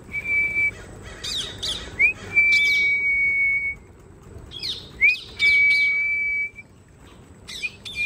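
A person whistling a recall call for a lost African grey parrot: a quick upward swoop into a long, steady high note, repeated about four times, with the held notes lasting one to two seconds.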